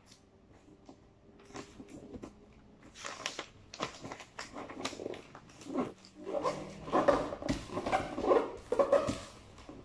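Gift wrapping paper rustling and crinkling as it is folded and pressed over a cardboard carton. The irregular crackles are faint at first and grow louder and denser after a few seconds.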